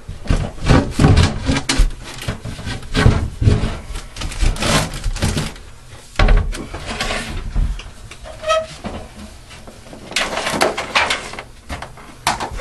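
Knocks, bumps and scraping as a ceiling attic hatch panel is pushed up and moved aside, in clusters of clatter with a quieter stretch about two-thirds of the way through.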